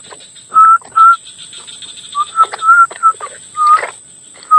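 A run of short, clear whistled notes, all at about the same pitch, some bending slightly upward, repeating at uneven intervals. A steady high insect buzz runs underneath.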